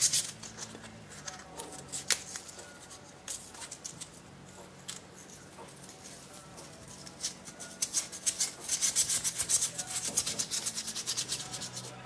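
Light scratching and rubbing of small hand tools on a folding pocketknife, as a fine pick works lint out of the knife and abrasive is rubbed against it. Scattered scrapes and a few clicks give way, about two-thirds of the way in, to a fast run of short rubbing strokes that lasts several seconds.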